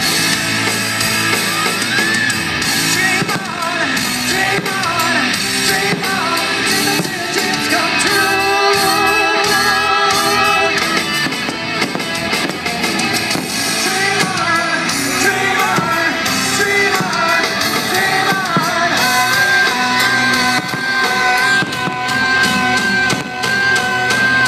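Rock music with a singer over guitar and drums, with a long held note near the end.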